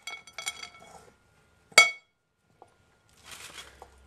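Metal fork clinking against a ceramic dish while cutlets are breaded: a few light clinks, then one sharper ringing clink near the middle. A short scraping rustle of breadcrumbs follows near the end.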